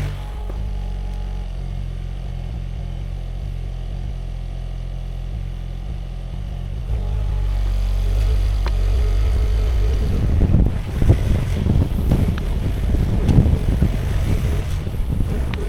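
Sany SY50U mini excavator's diesel engine running steadily, picking up load about seven seconds in. From about ten seconds in, irregular scraping and clunking rise over the engine as the machine digs.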